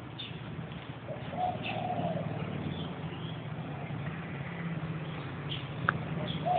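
A dove cooing: a short rising-and-falling phrase about a second and a half in and another at the very end, over a steady low hum of road traffic that comes in about two seconds in. A single sharp click shortly before the end.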